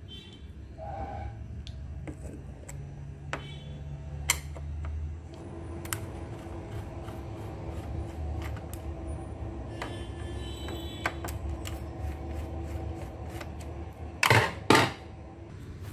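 Scattered light clicks and ticks over a low steady hum, with two louder short scrapes about half a second apart near the end.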